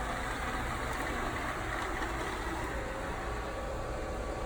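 Kobot RV351 robot vacuum running, its motor and brushes making a steady whir; a steady humming note joins a little past three seconds in.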